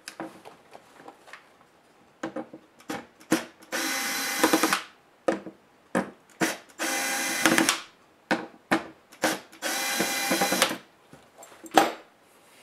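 Small electric screwdriver running in three steady bursts of about a second each, backing out the screws that hold a laptop's CPU heatsink and fan to the motherboard. Light clicks and knocks of handling come between the bursts, with a sharp knock near the end.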